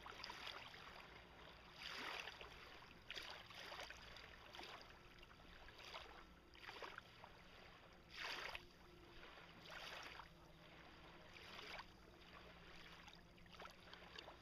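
Faint water splashing and lapping around a kayak and a floating dock, in irregular swells every second or two.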